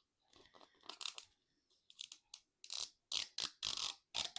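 Crinkling and crackling of plastic packaging being handled and opened on a Mini Brands toy capsule: a run of short, irregular crinkles that grow louder and come thicker near the end.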